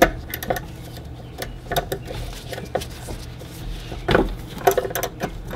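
Scattered metallic clicks and clinks of a socket wrench and hand working a 10 mm bolt on the golf cart engine's blower housing, loudest a little after four seconds in.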